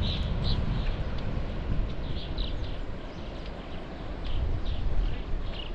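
Birds chirping in short, repeated high calls, several a second in clusters, over a rumble of wind on the microphone.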